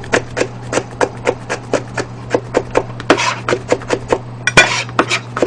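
A chef's knife rapidly mincing garlic on a plastic cutting board: quick, even chops at about five a second.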